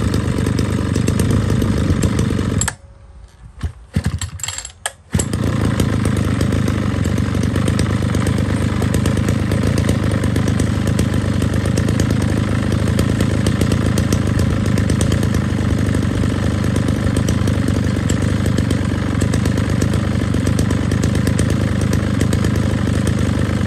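Mitsubishi TL33 33 cc two-stroke brush cutter engine running steadily at an even speed. About three seconds in the sound drops away for about two seconds with a few clicks, then the engine is heard running again.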